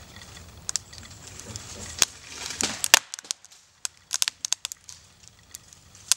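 Poplar hinge wood cracking and splintering as the partly cut trunk is bent over: a run of sharp cracks and snaps, loudest in a cluster about two to three seconds in, with another cluster around four seconds in. The cracks are the hinge fibres tearing as the hinge is bent toward failure.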